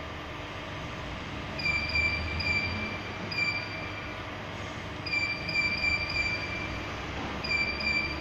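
Touchscreen keypad of a checkweigher beeping as keys are pressed: short high beeps in three quick clusters, over a steady hum from the running machine.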